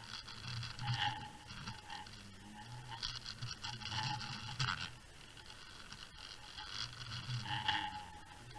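Scraping and rubbing noise picked up by an underwater camera on a fishing rig over the seabed. It swells in three surges about three seconds apart.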